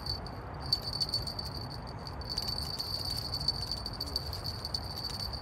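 Crickets trilling at night: a steady, high-pitched chirring that pauses briefly twice, once just after the start and again about two seconds in.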